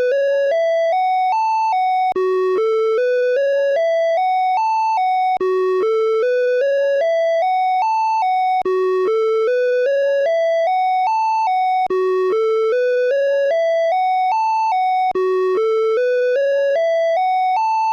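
Emergency alert (EAS) alarm tone played on a loop: a short tone, then a low tone and a run of about nine tones stepping upward in pitch. The pattern repeats about every three and a quarter seconds.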